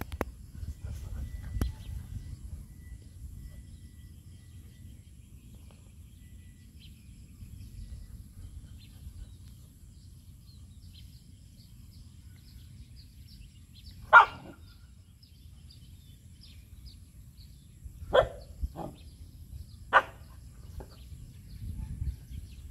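Dog barking in short single barks, four in all: the first and loudest about 14 seconds in, then three more between about 18 and 20 seconds in, over a steady low rumble.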